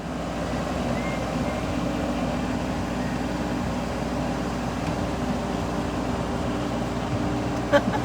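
Engine of heavy construction machinery running steadily, with a sharp metallic knock near the end.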